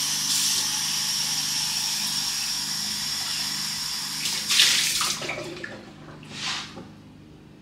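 Kitchen faucet running steadily with a faint high whistle, then a couple of short louder splashes before it stops about two-thirds of the way through.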